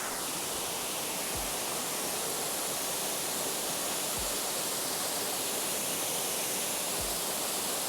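Waterfall pouring steadily: a constant rush of falling water. Three soft low thumps come at even intervals, about one every three seconds.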